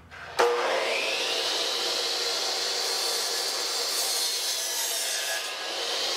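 A 12-inch power miter saw switches on about half a second in, its motor whine rising as the blade comes up to speed. It then runs steadily as the blade cuts through a 4x4 wooden post.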